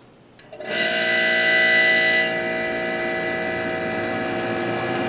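A click as the new humidistat switches on, then a vintage Kenmore dehumidifier starts: its fan motor and R-22 refrigerant compressor come on together and run steadily. The sound is a little brighter for the first second or so, then settles.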